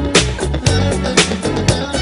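Dance music played back for a dancer, with a strong beat about twice a second and a steady bass line.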